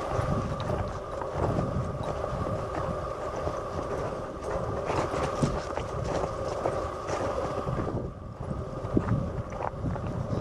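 Wind buffeting the microphone: a steady, fluctuating low rumble, with faint scattered ticks through it.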